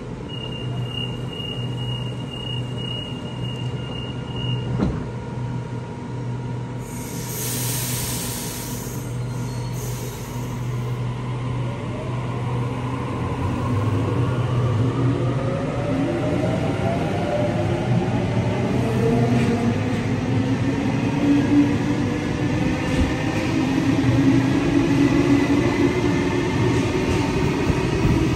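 Sydney Trains double-deck electric train leaving an underground station platform. A steady high warning tone plays for about four seconds as the doors close, and a short burst of hissing air follows a few seconds later. Then the traction motors whine, several tones rising in pitch and growing louder as the train accelerates away.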